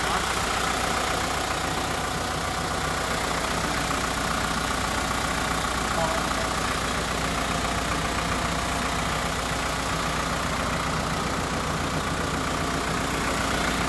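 Mitsubishi Rosa bus's 4M51 four-cylinder diesel engine idling steadily.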